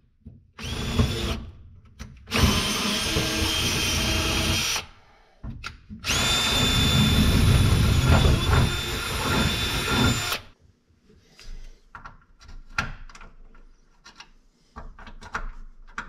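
Power drill with a twist bit boring into the steel floor pan of a Jeep TJ, running in three goes: a short burst, then about two and a half seconds, then about four seconds. It is followed by light clicks and taps of handling.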